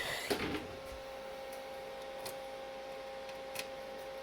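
Clicks and rattles of a microphone plug and cables being handled and moved between jacks, then a few faint single clicks, over a steady two-pitch electronic tone from the bench equipment.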